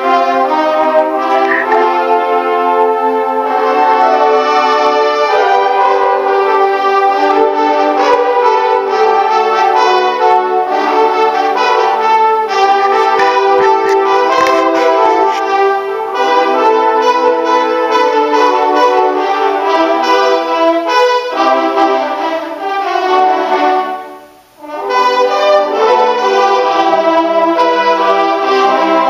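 Large brass ensemble, mellophones among trumpets and trombones, playing loudly together in sustained chords and moving lines. The music stops for a brief moment about three-quarters of the way through, then comes back in.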